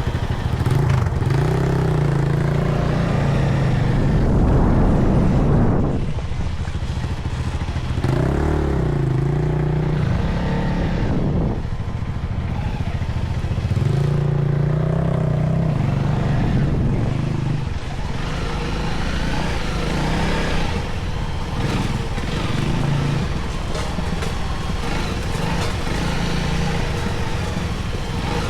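Motorcycle engine running in low gear, rising in pitch and easing off three times, then running lower and steadier.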